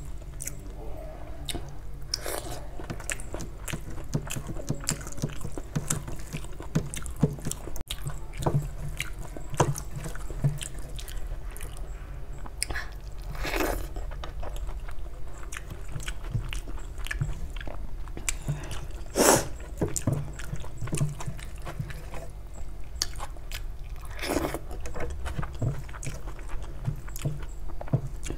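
Close-miked mouth sounds of eating rice and egg curry by hand: chewing, lip smacks and small wet clicks throughout. A few louder wet sounds stand out, the loudest a little past halfway.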